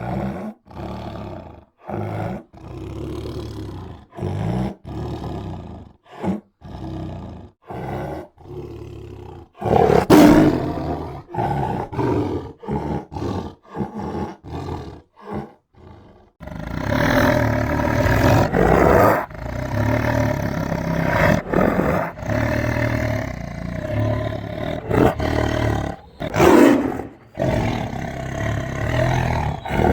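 Tiger roaring and growling: a run of short, choppy roars with brief gaps between them for about the first half, then a longer, nearly unbroken stretch of roaring from about halfway on.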